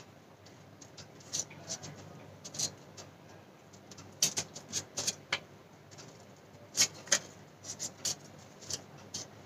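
Scissors snipping through folded paper: irregular short, sharp snips, some in quick pairs, the strongest about four and seven seconds in.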